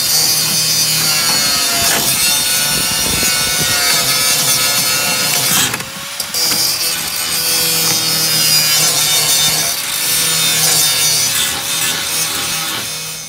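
Handheld power tool working the sheet-metal floor pan of a car body, running with a steady whine that wavers slightly. It dips briefly about six seconds in and stops suddenly near the end.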